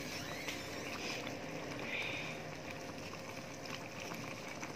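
Squid stew in a thin, watery sauce simmering in a wok: a steady, low bubbling.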